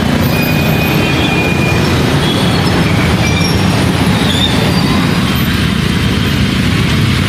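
Dense road traffic moving slowly through floodwater: motorbike and autorickshaw engines running together with tyres churning through standing water, in a steady mix.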